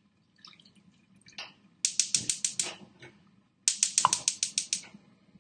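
Gas range's spark igniter clicking rapidly in two runs of about a second each, as the burner is lit.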